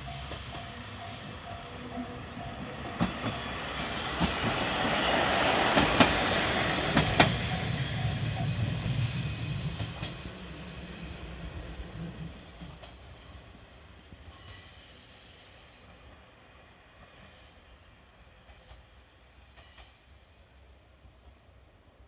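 A diesel railcar passes over a level crossing, its wheels knocking over the rail joints several times as it goes by. It is loudest about five to seven seconds in, then fades away. At the very start a steady, repeating level-crossing bell is ringing.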